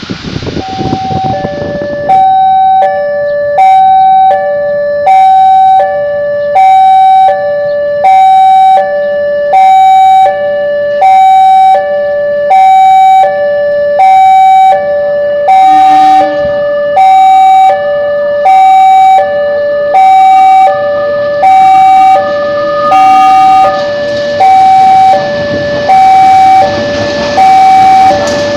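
Railway level-crossing warning alarm sounding a repeating two-tone electronic chime, high then low, about once a second, starting about two seconds in. Near the end the noise of the approaching train rises under it.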